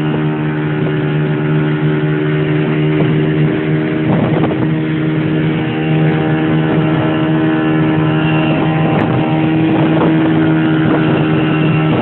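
Boat motor running at a steady speed, an even engine hum that holds its pitch throughout.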